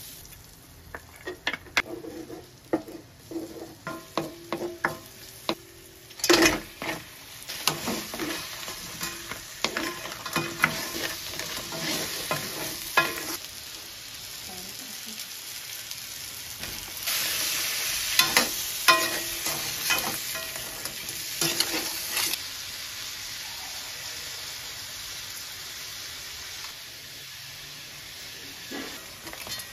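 Shallots and onion frying in butter in a stainless steel wok, sizzling steadily while a wooden spoon scrapes and knocks against the pan. Crabs and prawns then sizzle in the wok, with a louder stretch of sizzling a little past the middle.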